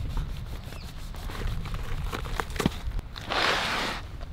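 Jackfruit being handled: bulbs pulled by hand from the stringy, sticky fibres, giving small ticks and tearing rustles, with one louder rustling burst a little after three seconds in.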